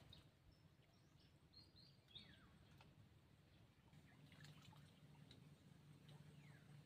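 Near silence with faint, high bird chirps, including short downward-sliding calls about two seconds in and near the end, and a faint low hum in the second half.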